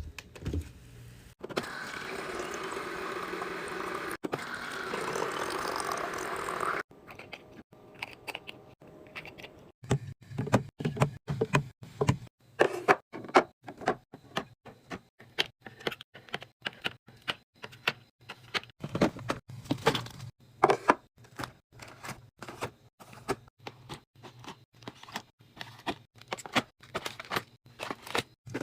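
Liquid pouring steadily into a container for about five seconds, stopping abruptly. Then many quick taps, clicks and clinks of containers and items being handled and set down.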